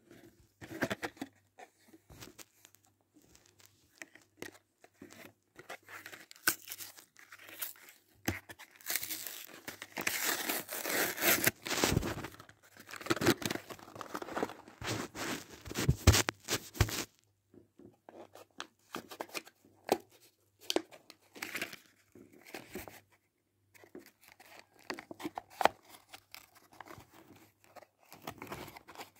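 Cardboard card backing and clear plastic blister of Hot Wheels toy-car packaging being torn and crinkled by hand. The rustling and tearing is dense and continuous from about nine to seventeen seconds in, with scattered crackles before and after.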